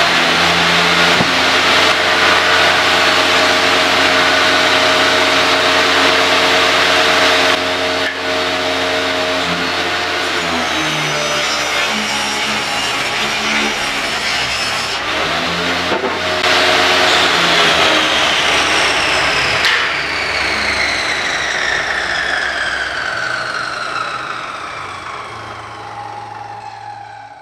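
Benchtop table saw running and cutting wooden boards for a subwoofer box, its motor and blade loud. About twenty seconds in it is switched off and the blade winds down in a falling whine that fades away.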